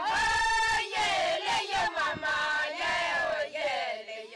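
A group of Ilchamus women singing a traditional song together, their voices sliding up and down in pitch.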